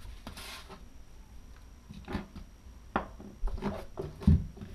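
Handling noises on a wooden workbench: a brief paper rustle at the start, then a few scattered light clicks and knocks as a Dremel rotary tool and its cord are picked up, the loudest a dull thump near the end.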